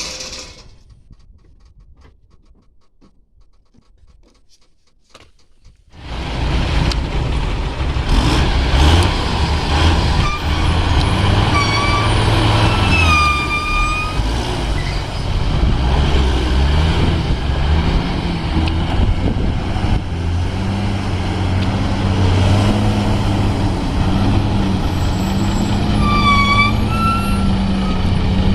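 A heavy diesel engine on a backhoe loader or tipper truck comes in loud about six seconds in after a quiet start, its pitch rising and falling with the load. Short high squeals sound twice, around the middle and near the end.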